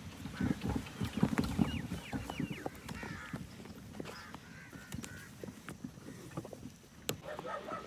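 A horse's hooves clopping at a walk on a dirt path, with birds giving several short, falling, honking calls, the busiest calling between one and three seconds in.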